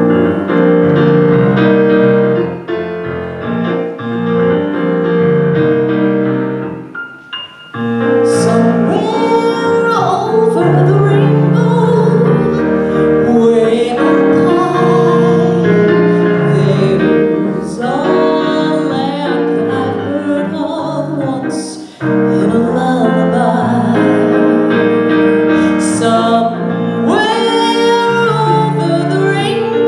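A woman singing a slow song with piano accompaniment, pausing briefly between phrases about seven and twenty-two seconds in.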